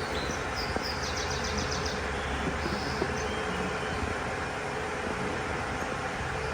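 Mercedes-Benz M276 V6 engine running steadily. A faint bird chirps quickly for a moment in the first two seconds.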